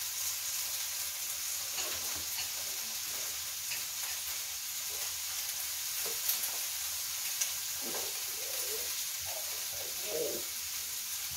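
Food sizzling on a tabletop grill plate: a steady hiss, with a couple of light clicks as tongs turn the food.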